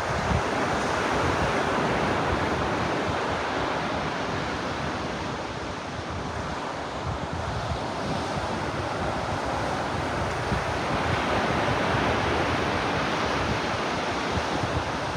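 Ocean surf washing onto a beach, a steady rushing wash that swells and eases slowly, dipping a little about halfway through before building again. Wind buffets the microphone faintly underneath.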